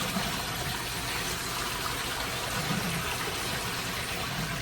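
Liquid running steadily into a mop sink, an even rushing splash.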